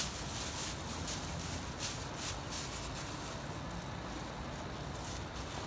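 A clear plastic bag crinkling repeatedly in the first three seconds as hands work in it, over a steady rush of river water. A brief knock sounds right at the start.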